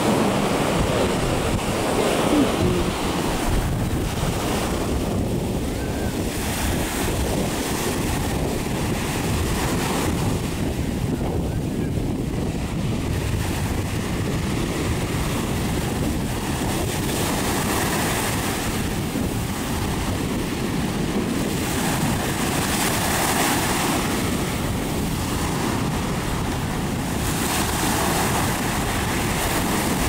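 Small ocean waves breaking and washing up a sandy shore, the wash swelling every few seconds, with wind buffeting the microphone.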